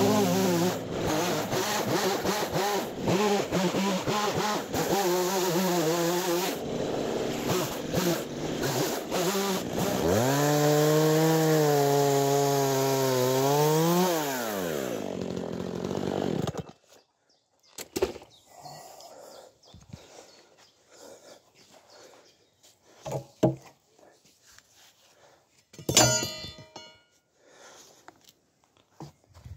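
Makita chainsaw cutting lengthwise along a log, its motor pitch wavering as the chain bites. It then runs at a steady higher pitch, and the motor winds down to a stop about two thirds of the way in. A few light knocks follow, and a short clatter near the end as the saw is handled.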